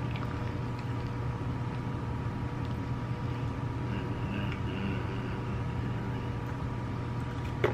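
Steady low mechanical hum, as from an idling engine or an air-conditioning unit, with one short click near the end.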